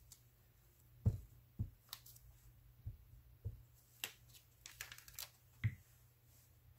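Paper being handled: crinkling and rustling, with about five soft knocks on the work table, the first and last the loudest.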